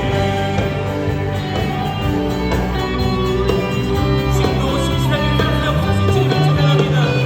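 Live worship band music: electric guitar, keyboard, bass guitar and drums playing a contemporary worship song.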